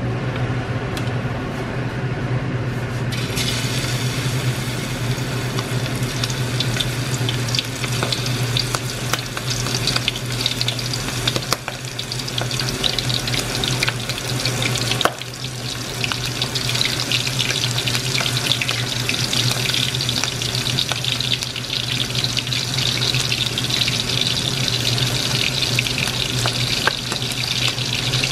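Battered squid rings deep-frying in hot oil in a wok, a dense sizzle that starts abruptly about three seconds in as the pieces go into the oil, then keeps going steadily. A sharp knock about halfway through.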